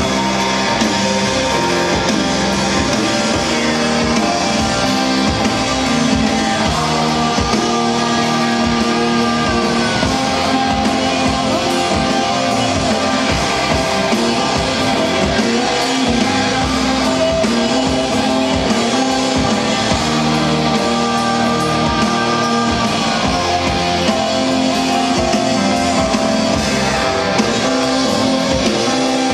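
Live psychedelic rock band playing: electric guitars and drum kit, at a steady level with no breaks.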